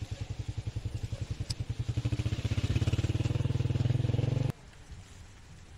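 Motorcycle engine ticking over with a fast, even putter, growing louder, then cut off suddenly about four and a half seconds in, leaving a light hiss of rain.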